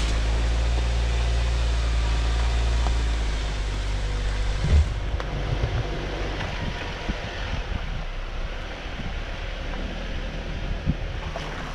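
Jeep Wrangler Rubicon's 2.0-litre turbocharged four-cylinder engine running steadily. About five seconds in there is a thump, and the engine sound drops back under irregular knocks and bumps as the Jeep crawls over the rocky trail.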